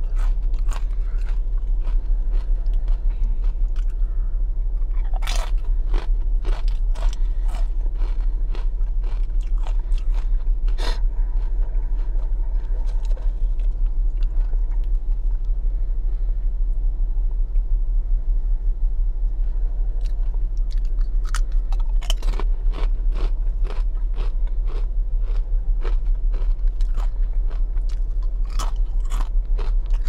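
A person biting and crunching crisp chips and chewing them close to a lapel microphone. The sharp crunches come in dense runs, with a sparser stretch mid-way, over a steady low hum.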